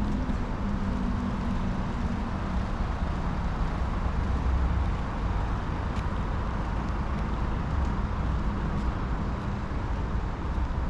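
Steady road traffic noise with a low engine hum that fades in and out.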